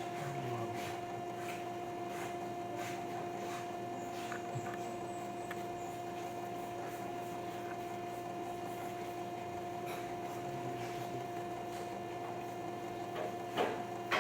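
Steady electrical hum made of two constant tones, with faint, scattered light clicks and taps over it.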